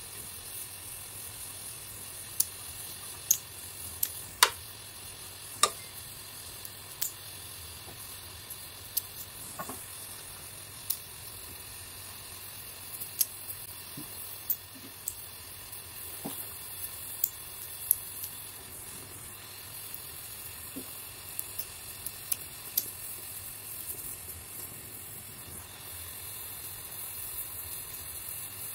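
LPG gas torch flame hissing steadily while aluminium filler rod is melted onto a cast aluminium part. Irregular sharp crackles and pops sound every second or so.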